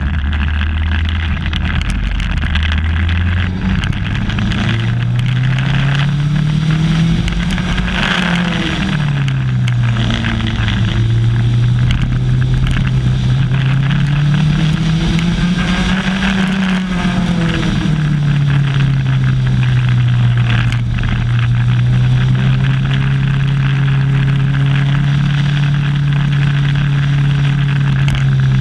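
Ariel Atom 300's 2-litre supercharged engine running hard on track. The note climbs in pitch for several seconds and drops back sharply twice, then holds steady, over a constant rushing noise.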